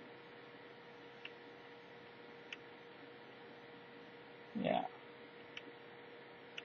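Steady low hum with a faint constant tone, broken by a few small, isolated clicks of a stainless-steel mini multitool being handled and worked open.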